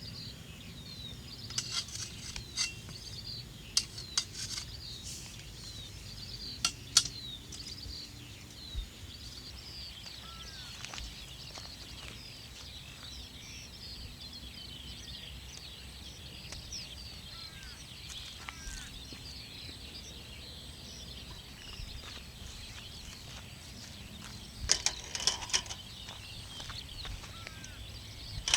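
Many small birds chirping and twittering continuously, with scattered sharp clicks and knocks, a quick cluster of them near the end.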